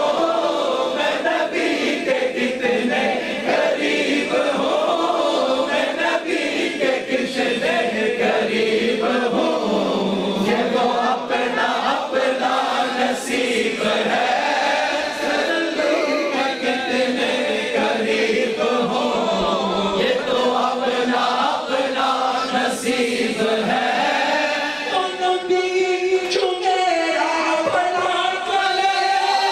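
A crowd of men chanting together in devotional naat chanting, many voices overlapping. Near the end the chant settles into clearer, held sung notes.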